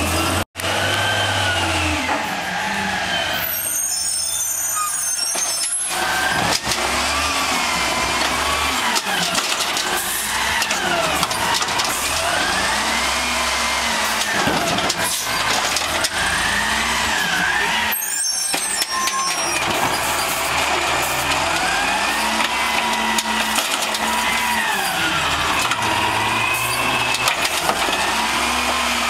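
Peterbilt natural-gas garbage truck working its Amrep automated side-loader arm. The engine revs up and down again and again to drive the hydraulics, with a whine that rises and falls in pitch as the arm grabs, lifts and dumps carts.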